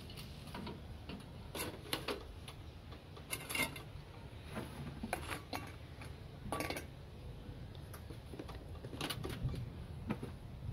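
Scattered light clicks and knocks of a plastic personal-blender cup being handled and twisted on its base, with the odd clink of kitchenware, over a low steady background hum. The blender motor is not running.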